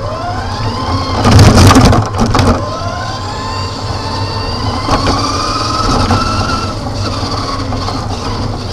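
Small vehicle driving along a concrete floor, its motor whining and rising and falling in pitch as it speeds up and slows down. There is a loud rattling clatter about a second and a half in.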